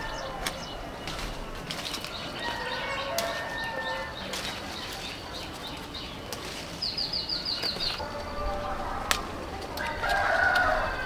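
Birds, chickens among them: wings flapping and calls, with a quick run of about seven high chirps past the middle and a louder call near the end.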